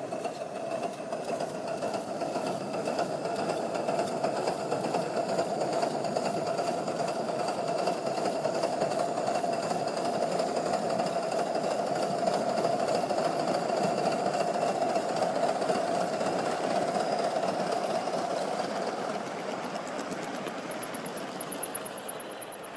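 A Gauge 1 live steam model locomotive, a 1/30th scale 'Jumbo', running along its track with a fast, even mechanical clatter. It grows louder over the first dozen seconds, then fades as it moves away.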